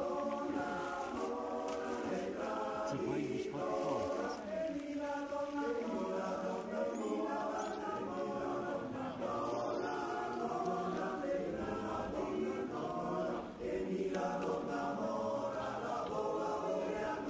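A choir singing a slow song with long held notes.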